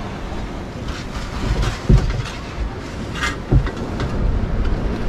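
Wind buffeting the microphone over breaking surf, a steady rumble, with two sharp low thumps about two seconds and three and a half seconds in.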